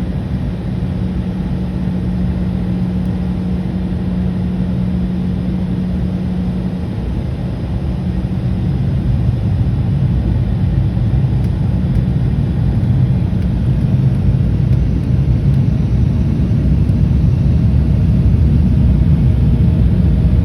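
Boeing 787-9 cabin noise while taxiing: a steady low engine rumble that grows somewhat louder from about halfway through, with a steady hum that fades out about a third of the way in.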